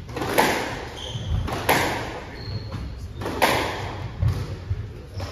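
Squash ball being struck by rackets and hitting the court walls during a rally: sharp cracks every second or so, each ringing on in the hall, with a deeper thud near the end.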